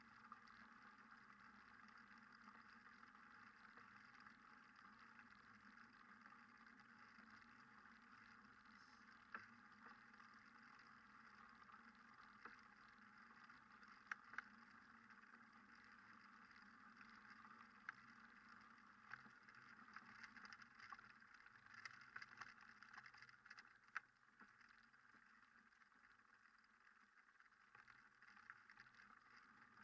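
Near silence: a faint steady hiss with a few scattered soft clicks.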